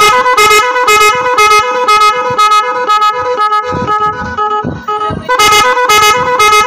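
A pair of 12 V electric disc horns, one high and one low, driven by a Magic18 digital horn module, sounding a fast repeating pattern of short beeping notes that alternate in pitch. There is a brief break about five seconds in.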